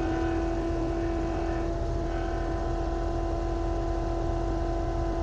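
Engine of an earthmoving machine running steadily with an even hum.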